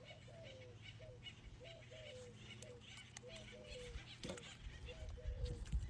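Farm fowl calling over and over in short falling notes, about two or three a second, with a few low thumps near the end.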